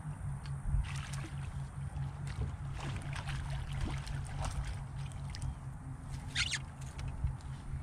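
Hooked channel catfish splashing at the water's surface as it is reeled up beside a jon boat. There are several short splashes, the loudest about six and a half seconds in, over a steady low hum.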